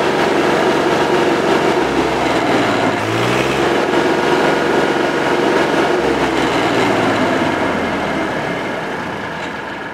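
Massey Ferguson 7250 DI tractor's three-cylinder diesel engine running near full speed, close to 3000 rpm, then slowing as the throttle is let off. It gets quieter over the last few seconds.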